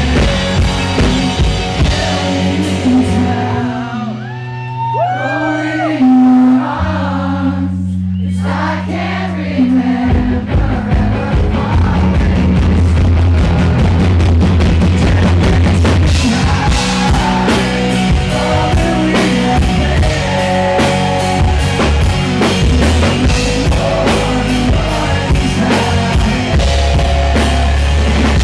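Live rock band with a male lead singer, recorded from the crowd. About four seconds in the band drops back to long held bass notes under the voice, and near ten seconds the drums and full band come back in.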